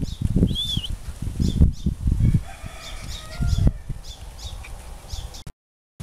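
Knife chopping pork on a wooden chopping board: dull knocks in quick clusters. Birds chirp, and a rooster crows about halfway through. All sound drops out briefly just before the end.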